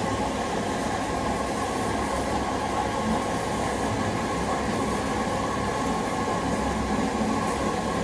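Front-loading washing machine running with its drum spinning: a steady, loud mechanical rumble with a faint motor whine above it.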